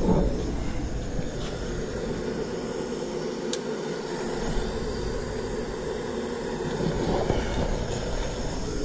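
Burner of a small homemade forge running with a steady rushing noise while it heats a steel tine. A faint metal click, likely the tongs, comes about three and a half seconds in.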